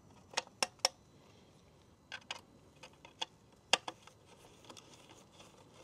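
Irregular sharp clicks and light taps from hand tools working the small screw of a motorcycle exhaust clamp: three quick clicks in the first second, scattered lighter ticks after, and one sharper click just before the four-second mark.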